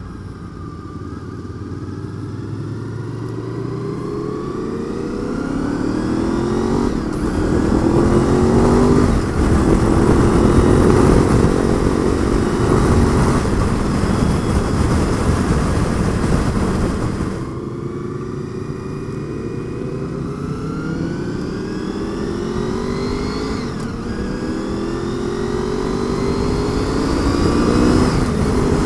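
Honda VFR800 V4 motorcycle engine accelerating hard through the gears, its note rising and dropping back at each upshift, in two runs, with heavy wind noise that builds as speed rises.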